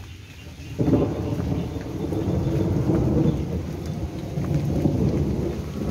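Thunder rumbling over rain: a low rumble starts suddenly about a second in and rolls on unevenly, rising and falling.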